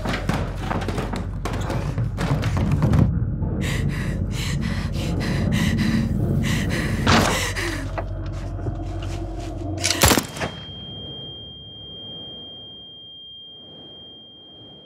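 Film soundtrack: a stretch of irregular thumps, knocks and clatter over a low steady hum, broken about ten seconds in by one sharp loud hit, after which the rest falls away and a single steady high-pitched ringing tone is held to the end.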